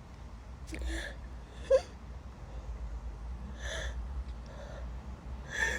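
A woman's short, breathy gasps and catching inhales between sneezes, several in a row, in the middle of a sneezing fit.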